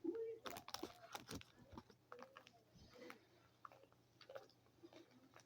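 Faint sticky clicks and crackles of a soft, sticky squishy toy being squeezed and handled, its surface sticking and pulling free. The clicks are densest in the first second and a half.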